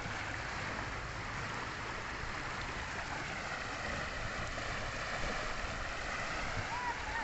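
Fast floodwater of a swollen river rushing and churning in boils and eddies: a steady, even rush.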